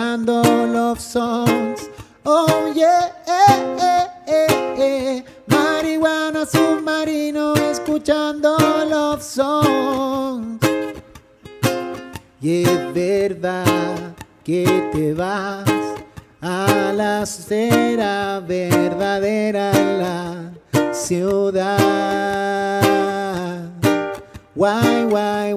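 Ukulele played live as an instrumental passage: rhythmic strummed chords mixed with picked melody notes, in short phrases with brief breaks between them.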